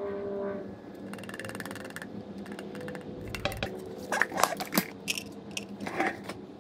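Engine oil draining through a plastic funnel into a Yamaha YZ250F's oil filler. A handful of sharp knocks and clicks follow as the funnel is handled and pulled out of the filler neck.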